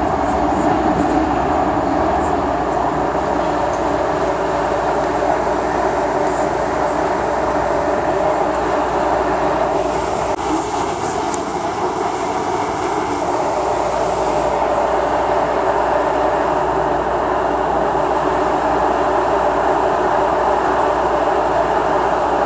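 Ride noise inside an MTR M-Train electric multiple unit under way: a steady rumble and roar of wheels on rail. About ten seconds in, two faint steady high tones come in for a few seconds.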